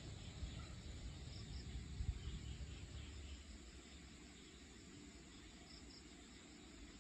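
Faint dusk outdoor ambience: insects chirping softly in short paired calls over a steady hiss, with a low rumble that swells about two seconds in and fades away after about three seconds.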